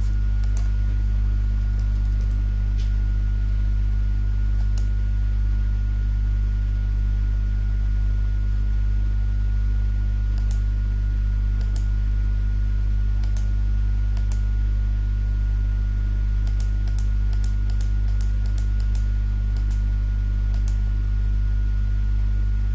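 Steady low electrical mains hum on the recording, with faint computer mouse clicks and keystrokes scattered over it and a quick run of clicks in the second half.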